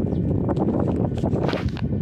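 Wind buffeting the phone's microphone in gusts, a deep rumbling rush, with a brief louder hiss about one and a half seconds in.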